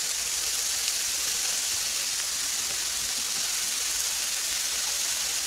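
Slices of beef sizzling on a hot perforated grill pan: a steady, even hiss of fat and juices frying.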